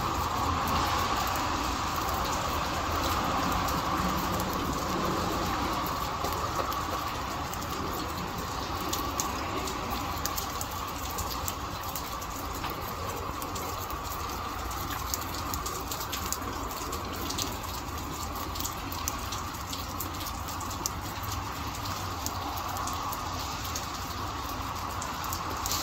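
Steady rain falling, with many small drops ticking close by.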